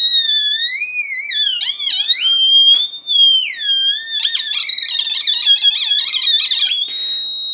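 Light-sensor theremin kit built on two 555 timer chips, playing through a small speaker with its loud jumper shorted: a loud electronic tone slides up and down in pitch as a hand passes over its light-dependent resistors. In the second half it breaks into a fast warble, then settles into a steady high tone near the end.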